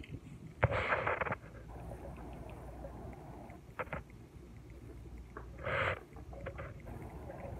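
Hand-twisted pink Himalayan salt grinder grinding in two short noisy bursts, about a second in and again near six seconds, with faint crackles and clicks between. A steady low rumble runs underneath.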